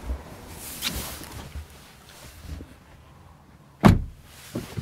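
Soft handling and rustling sounds, then a car door of the Mercedes-AMG GT 63 S 4-Door shutting with one loud thud about four seconds in, followed by a smaller knock.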